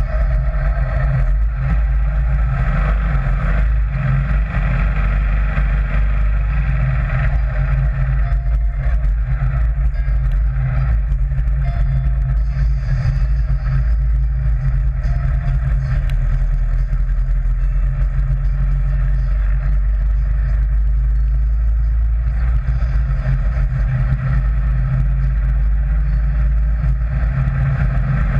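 Sand rail dune buggy driving along, its engine running steadily with a strong low rumble.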